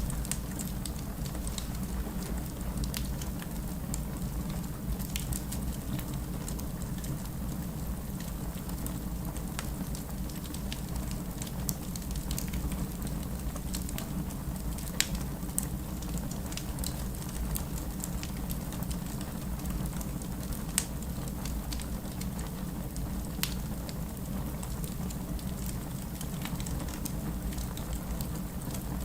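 Wood fire burning in a fireplace: a steady low rumble of the flames with frequent small crackles and pops, a few sharper pops standing out now and then.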